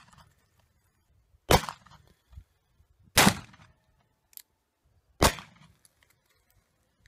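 Three shots from a Colt percussion revolver firing black powder offhand, spaced about two seconds apart, each a sharp crack with a short echo after it.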